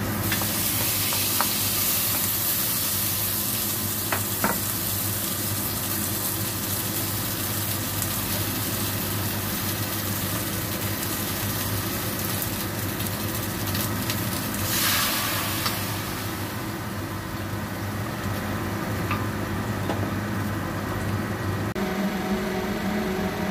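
Pork pieces sizzling in oil as they are tipped into a hot stainless-steel pan, with a few sharp clicks of a utensil against the pan in the first seconds. A second, louder burst of sizzling comes about fifteen seconds in, over a steady low hum.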